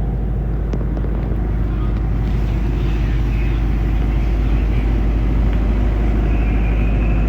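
Steady low engine rumble with constant noise over it, and one brief click under a second in.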